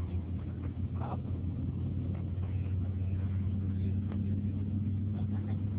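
Steady low drone of a moving vehicle's engine and road noise, heard from inside the vehicle.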